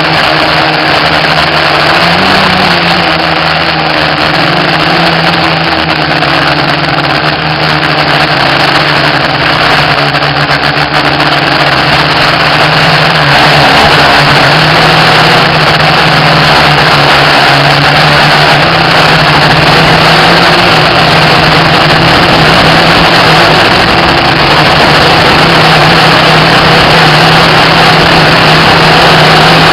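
FPV racing quadcopter's brushless motors and propellers buzzing in flight: a loud, steady drone whose pitch wavers slightly as the throttle changes, over a rushing haze of wind noise.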